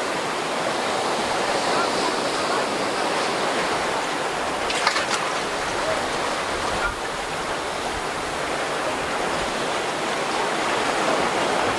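Rough inlet water rushing and breaking around a swamped boat, a steady churning hiss, with a short sharp sound about five seconds in.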